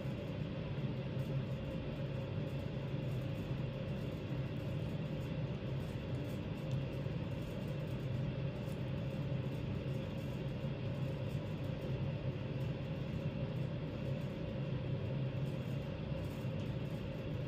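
Steady low mechanical hum with a faint hiss above it.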